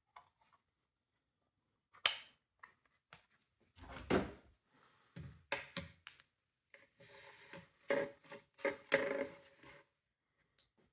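Clicks, knocks and scraping from the plastic housing of a Honeywell NFXI-SMT2 smoke detector being handled and worked apart, with a squeaky creaking rub in the second half.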